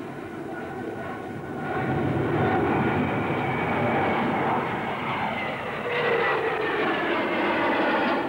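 The four rear-mounted Rolls-Royce Conway jet engines of a Vickers VC10 airliner in a flypast. The jet noise grows louder about two seconds in, with whining tones that slide down in pitch, and another falling whine starts near six seconds.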